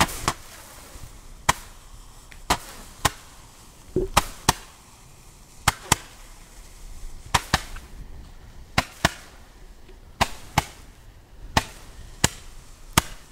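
Long-burning ground firework sticks stuck in the grass, going off in sharp cracks at irregular intervals, often in quick pairs, about one to two a second. The piece gives only noise and no visible effect.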